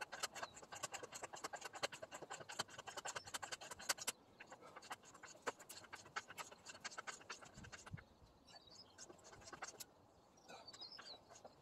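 Socket ratchet wrench clicking in quick runs on the back-swing as it turns a long screw bolt into a pre-drilled wooden 4x4. The clicks thin out after about eight seconds.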